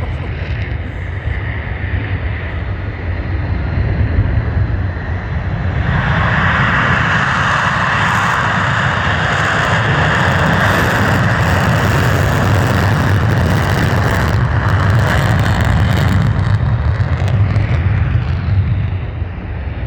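F-35 fighter jet's single F135 turbofan engine at takeoff power, loud, with a deep rumble underneath. A harsher, higher layer of jet noise swells in about six seconds in and fades away near the end.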